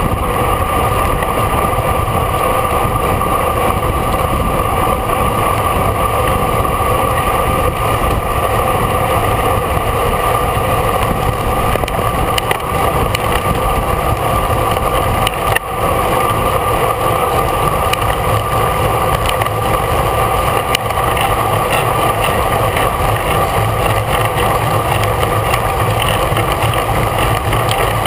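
Steady wind rush and road noise on a camera mounted on a racing bicycle, riding at speed.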